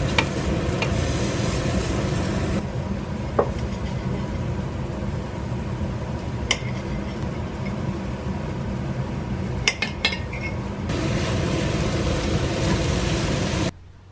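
Chicken fillets sizzling in a grill pan, with a steady hiss, while a fork scrapes and clicks against the pan. Several sharp clinks of a knife and cutlery on a plate come in the middle, as cherry tomatoes are sliced.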